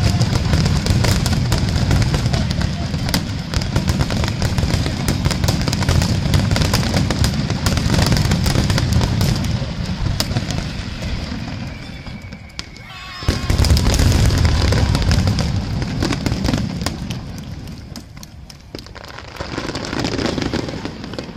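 Aerial firework shells bursting in a dense barrage: rapid overlapping bangs and crackling over a continuous low rumble. There is a brief lull about twelve seconds in, then another loud volley that gradually fades toward the end.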